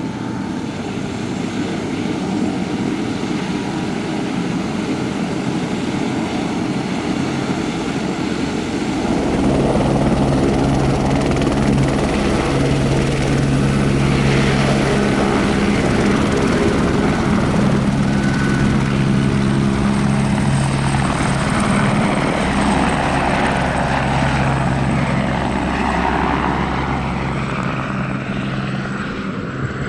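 Airbus H125 helicopter running close by as it hovers and lifts off: a steady turbine-and-rotor drone with a fast low rotor beat. It grows louder about a third of the way in and eases off near the end as the helicopter climbs away.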